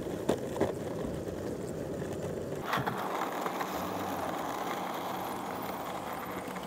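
Longboard wheels rolling on rough asphalt: a steady rumble, with a few sharp clacks in the first three seconds.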